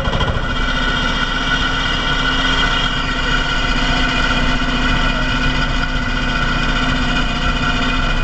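Vintage tractor engine running steadily, with a steady high whine over its low running note.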